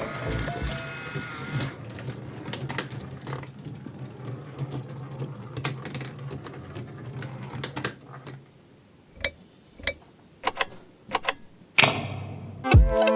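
Glass marbles clicking and rattling along a wooden marble run over the steady hum of its small electric motor. The hum stops about eight seconds in, leaving a few sharp, separate clicks.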